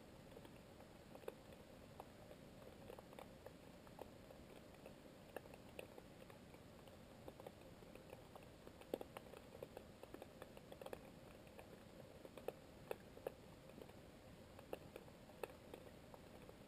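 Faint underwater ambience in shallow coastal sea: small irregular clicks and crackles over a low steady hiss, a few clicks louder about nine and thirteen seconds in.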